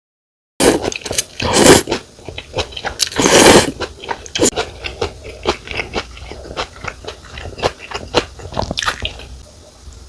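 Close-miked slurping of pho rice noodles, two long loud slurps, followed by steady wet chewing with many small smacks and clicks.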